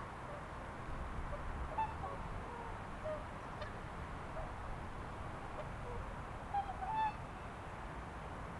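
Waterfowl calling: a few short, pitched calls scattered through, with a louder cluster of calls near the end, over a steady background noise.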